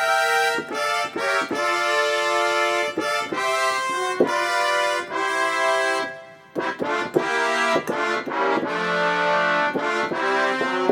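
Yamaha Montage M synthesizer playing its Trumpet Ensemble preset: chords of sampled trumpets played on the keyboard, with a short break about six seconds in before the chords resume.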